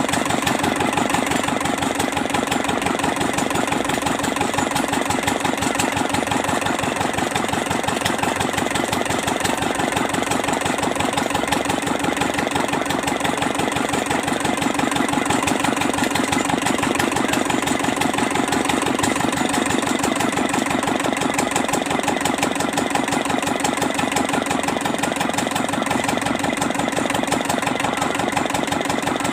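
Kubota Z751 two-cylinder diesel engine running steadily at idle, with an even, rapid firing beat.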